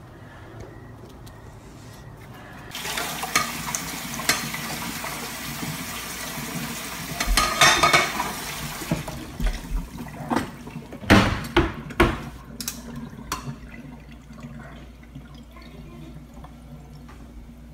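Water running for about six seconds, starting and stopping abruptly, followed by a few sharp knocks.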